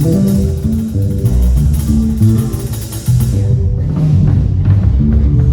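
Live band playing: bass guitar and guitar over a drum kit, the cymbals dropping out about three seconds in while the bass and chords carry on.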